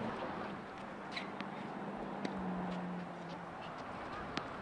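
Tennis rally: a few light ball strikes and bounces, spaced irregularly, the sharpest one near the end. A faint low hum lies under the middle of it.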